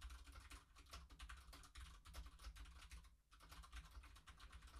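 Faint, rapid typing on a computer keyboard, with a short pause about three seconds in.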